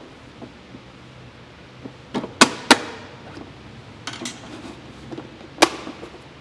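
Sharp snaps and cracks of hard plastic as a flat-blade screwdriver splits the plastic weld holding the factory intake onto a Ford Raptor airbox. Three snaps come in quick succession about two seconds in, lighter crackling follows, and one more sharp snap comes near the end.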